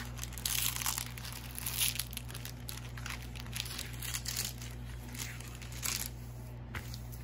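Diamond painting canvas and its clear plastic cover film crinkling as it is unrolled and smoothed flat by hand. The crackles come thickest in the first few seconds and grow sparser after.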